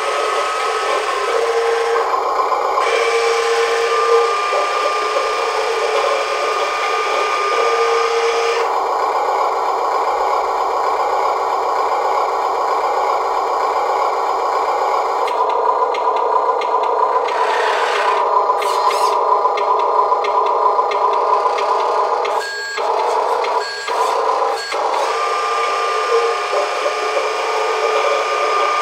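Electric tipper motor and gears of an Amewi Arocs 1:16 RC dump truck whirring and grinding steadily as the dump bed tilts, the sound changing a few times as the bed moves.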